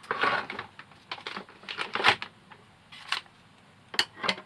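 Small objects being handled and moved about by hand: a run of short rustles and knocks, with two sharp clicks near the end.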